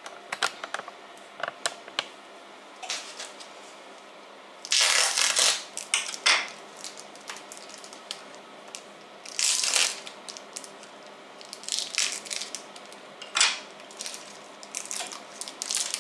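Plastic wrapping on a sausage crinkling and rustling as hands handle it. The sound comes in several short, loud bursts, with small clicks and taps between them.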